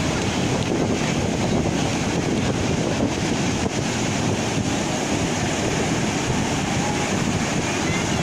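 Steady wind buffeting the microphone over the continuous wash of ocean surf.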